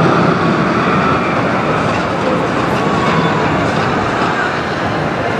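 Steady outdoor background noise: an even rushing noise with a murmur of many voices in a crowd.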